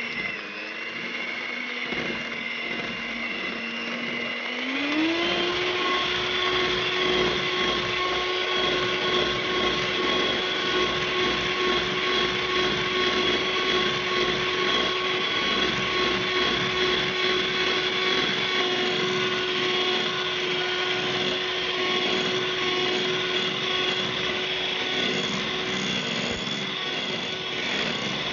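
Electric hand mixer (Cosmos) running, its twin beaters whirring through a stiff cookie dough of shortening, margarine, sugar and egg white. About four to five seconds in the motor speeds up and its whine rises in pitch, then runs steady.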